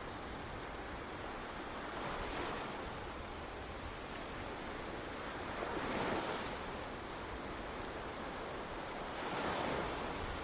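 Ocean waves washing onto a beach: a steady wash of surf that swells three times, a few seconds apart, as waves break.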